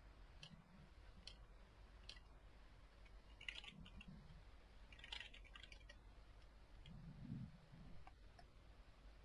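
Near silence broken by faint, scattered clicks of a computer keyboard and mouse, with quick little clusters about three and a half and five seconds in.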